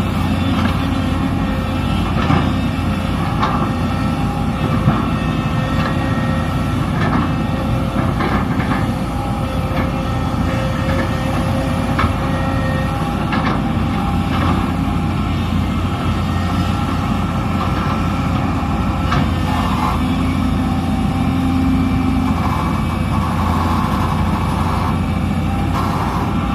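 SANY SY330H excavator's diesel engine running steadily, a low hum with several held tones over it. A few short knocks and clatter are scattered through it, the loudest about five and twelve seconds in.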